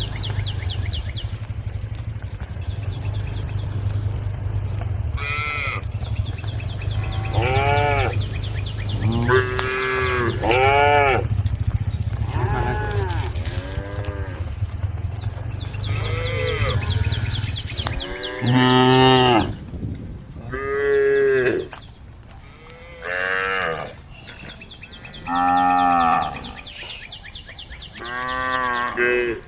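Several cows mooing again and again, the calls overlapping at first. Under them runs a steady low hum that cuts off suddenly about eighteen seconds in. After that come single long moos every two to three seconds.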